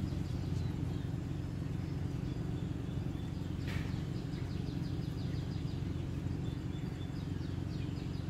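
Outdoor background sound: a steady low rumble with repeated runs of quick, high chirps from birds, and a brief hiss a little over three and a half seconds in.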